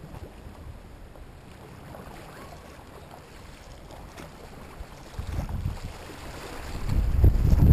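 Fast tidal current swirling and splashing around a stand-up paddleboard's nose. Wind buffets the microphone as a low rumble, which swells briefly about five seconds in and becomes loud near the end.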